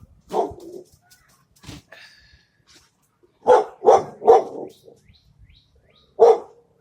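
A dog barking in short single barks, about six in all, three of them in quick succession in the middle. Faint bird chirps are heard between the barks.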